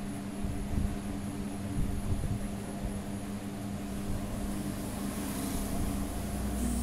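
A steady electric motor hum with an even rush of air, like a blower or fan running.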